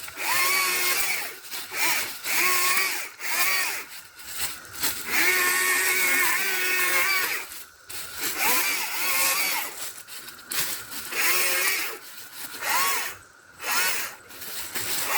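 Stihl MSA 120 C battery-powered chainsaw run in repeated short bursts. Its electric motor whine rises and falls with each trigger pull, with one longer run about five seconds in.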